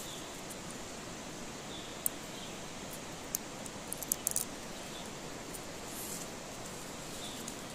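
Dry, papery ground-cherry (ceplukan) husks rustling and crackling as they are peeled off by hand, with a few sharp crackles near the middle, over a steady outdoor hiss.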